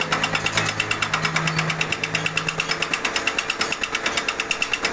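Milling machine with a single-point cutter taking an interrupted cut into steel: a rapid, even hammering of about eight to nine hits a second as the tool strikes the work. A low motor hum under it fades out by about three seconds in.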